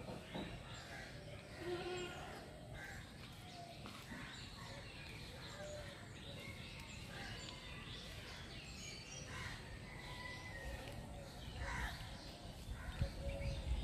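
Outdoor ambience with birds calling and chirping now and then, short scattered calls throughout.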